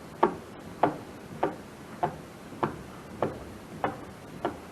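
Steady, evenly spaced ticking: eight sharp ticks a little under two per second, like a clock.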